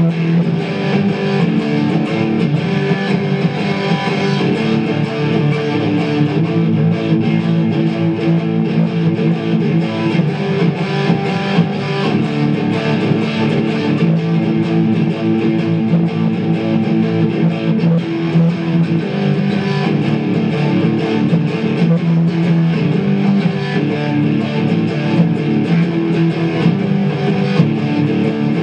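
Electric guitar played loud through an amplifier, a continuous run of sustained notes and chords without a break. The recording sounds distorted because the camera's microphone is overloaded by the cranked volume.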